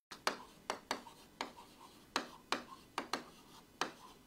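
Handwriting on a whiteboard: a quick, irregular series of about a dozen sharp taps and short scrapes as each stroke is made.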